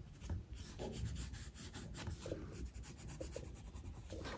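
Water-soluble colour pencil shading on 180 gsm Canson sketchbook paper: many short, faint scratchy strokes in quick succession.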